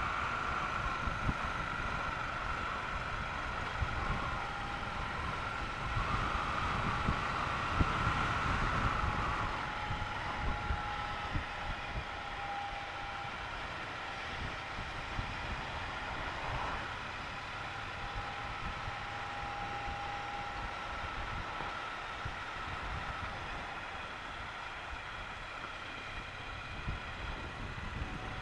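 Triumph Bonneville T120's 1200 cc parallel-twin engine running on the move, mixed with wind and road noise. It is louder for the first ten seconds or so, then settles quieter as the bike eases off.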